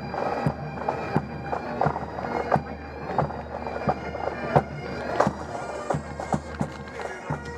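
Pipe band playing: bagpipes sounding over their steady drones, with a regular drum beat about every two-thirds of a second.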